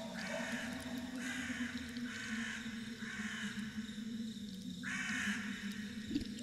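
A crow cawing five times in a harsh, ragged series, the last call after a pause of about a second, over a steady low drone.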